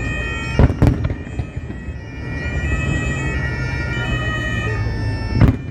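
Music with long held notes that change in steps, over a steady low hum, broken by two sharp loud knocks, one near the start and one near the end.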